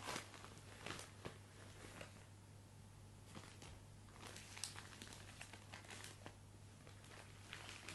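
Faint, irregular crinkling and rustling of plastic packaging being handled and opened, with scattered small crackles.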